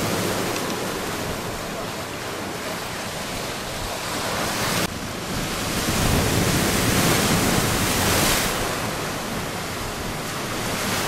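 Storm surf breaking on the shore in a gale, with wind buffeting the microphone: a steady roar of rushing water that swells and eases, with a sudden step in the sound about five seconds in.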